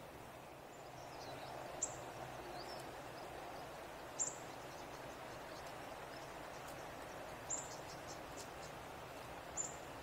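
Bush ambience: a faint, steady hiss with four short, very high chirps a couple of seconds apart and a few fainter high notes between them.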